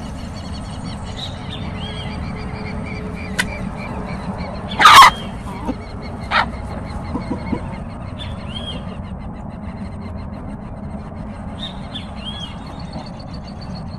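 Chickens feeding in a flock, with one loud short squawk about five seconds in and a shorter call just over a second later. Faint high chirps repeat in the background.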